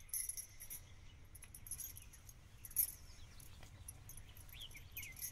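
Faint outdoor countryside ambience: small birds chirping in short quick calls and insects buzzing, over a low rumble of wind on the microphone.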